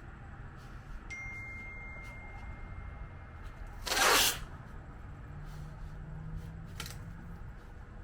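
Masking tape ripped off the roll once, a half-second tearing sound about halfway through, over a low steady hum; a light click near the end.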